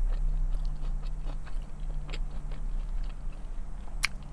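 Close-up chewing and biting of a chicken salad sandwich: soft wet mouth clicks and smacks, with one sharp click about four seconds in, over a steady low hum.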